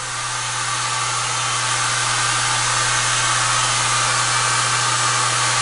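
Wall-mounted hair dryer with a coiled cord blowing steadily: a rush of air over a constant low motor hum, growing slightly louder over the first couple of seconds.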